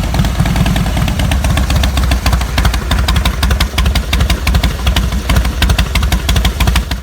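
2013 Harley-Davidson Dyna Street Bob's Twin Cam 96 V-twin engine idling loud just after start-up, with an uneven, pulsing beat.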